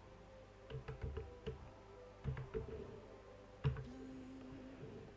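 Computer keyboard keys clicking as a terminal command is typed: several separate keystrokes at an uneven pace, the loudest about three and a half seconds in.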